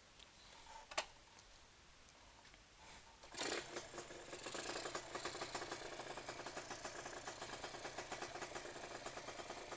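A sharp click about a second in, then a little after three seconds a Yamaha 125Z's 125 cc two-stroke single, fitted with a Cagiva Mito 125 exhaust, starts up and settles into a steady, evenly pulsing idle.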